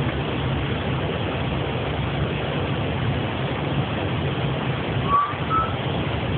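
Steady in-flight noise on an Airbus flight deck: a rush of air with a low, even drone. About five seconds in, two short tones sound, the second a little higher.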